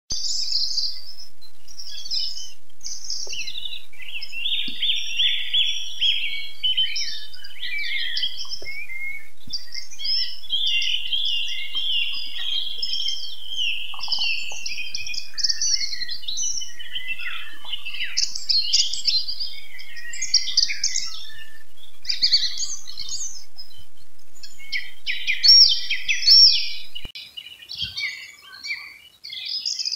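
Songbirds singing at dawn, several overlapping songs, trills and chirps. Near the end the level drops abruptly and the birdsong continues more quietly.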